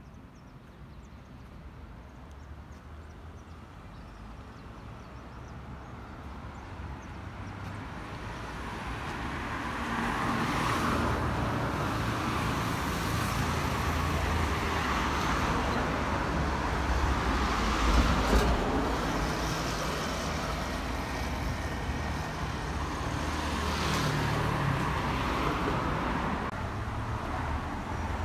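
Street traffic: cars passing on the road, growing louder over the first ten seconds and then staying steady.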